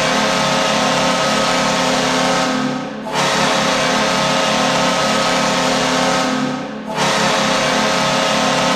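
Saint John Sea Dogs' hockey goal horn sounding in long, loud blasts with heavy added reverb. One blast dies away about three seconds in, a second runs to about seven seconds, and a third starts right after.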